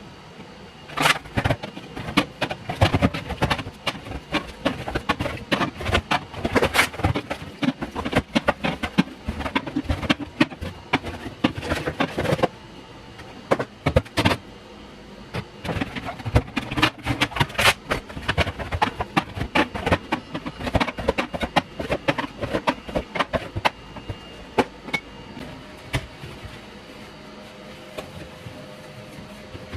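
Irregular clatter of hard objects being handled and set down, a rapid run of knocks and clinks that thins out near the end, over a faint steady hum.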